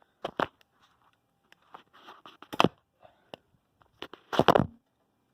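Plastic clicks, knocks and rattles of a 7-blade-to-4-flat trailer light adapter being unplugged and handled at the vehicle's trailer socket, with a few louder knocks about 2.5 s and 4.5 s in.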